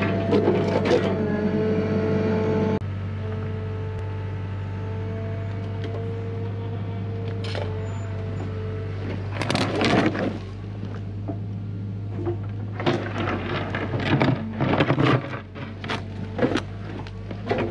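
Hyundai HX85A mini excavator's diesel engine running under load with a steady drone, with the bucket scraping and knocking against rock in bursts about ten seconds in and again through the last few seconds.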